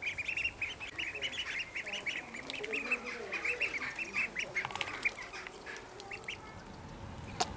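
A flock of about three-week-old Welsh Harlequin ducklings peeping, many short high calls in quick succession that thin out over the last second or two. A sharp click near the end.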